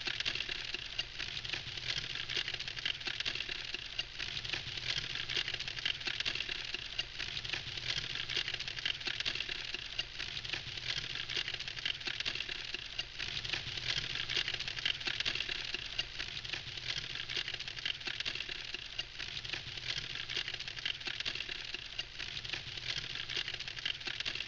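Wood fire crackling steadily: a dense, unbroken run of small, rapid crackles.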